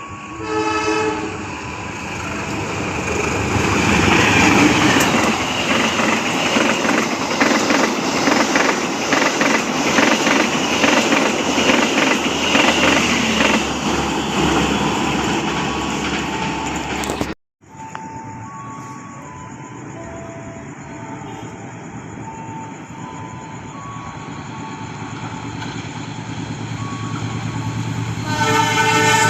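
A train sounds a brief horn blast, then passes close by, wheels clattering rapidly over the rail joints for about fifteen seconds. After a sudden break the sound is quieter with short steady tones, and near the end a train horn sounds loudly again.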